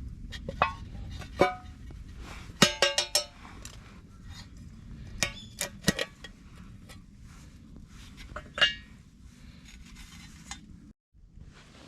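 Flint struck against a steel fire striker: sharp metallic clinks that ring briefly, with a quick run of about five strikes, a few more a couple of seconds later and a single one after that.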